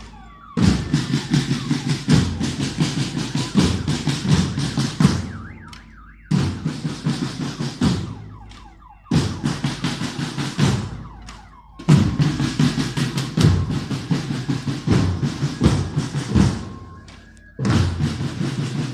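Marching band drums playing a cadence in loud bursts of a few seconds, each starting abruptly and dying away in a short pause, five times over. Faint rising and falling tones sound in the pauses.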